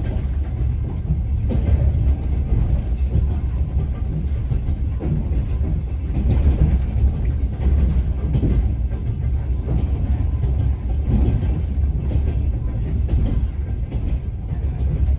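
A passenger train running, heard from inside an open-plan sleeper carriage: a steady, deep rumble with the faint clack of the wheels over the rail joints.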